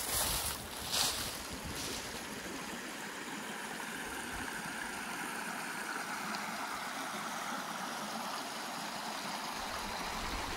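Small rocky creek running in a steady rush as water spills over a low stone ledge, with a few brief louder bursts of noise in the first two seconds.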